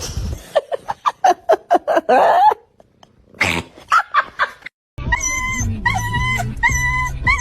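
A dog yipping and whimpering in quick, short, high-pitched cries, then from about five seconds in a steady repeating series of short held tones, about two a second.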